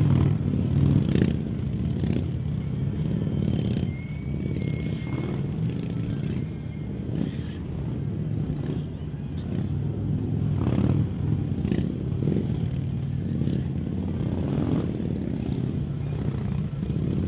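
Harley-Davidson police motorcycles' V-twin engines running at low revs through slow, tight turns, the throttle rising and falling a little, with scattered light clicks.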